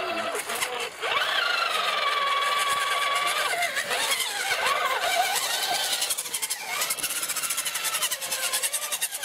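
Radio-controlled scale crawler truck's motor and gears whining as it climbs out of a muddy water channel. The pitch rises about a second in, holds steady, then swings up and down with the throttle.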